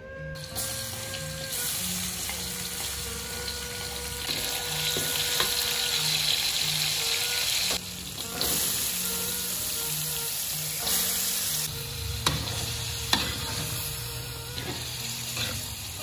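Chopped chili, tomato and shallots sizzling in hot oil in a wok, stirred with a metal spatula that scrapes and clicks against the pan. The sizzle cuts off and comes back abruptly a few times, with faint background music underneath.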